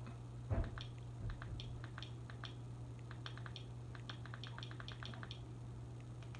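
Fire TV Stick remote's buttons clicking faintly in a run of presses, quickening towards the end, as the app list is scrolled, with a soft thump about half a second in and a low steady hum underneath.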